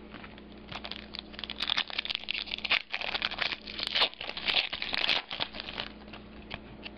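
Wrapper of a football trading-card pack crinkling and tearing as it is opened by hand, a run of irregular crackly rustles lasting about five seconds.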